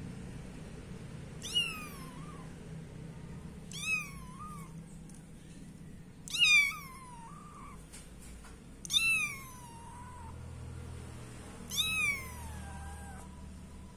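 A young kitten meowing five times, roughly every two and a half seconds: thin, high calls that each slide down in pitch.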